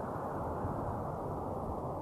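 Wind blowing as a steady, low rush with no gusts or breaks, swelling slightly through the middle.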